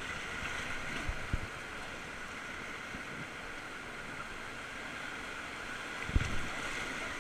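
Steady rush of whitewater river water around a raft, with two low thumps, one about a second in and a louder one near the end.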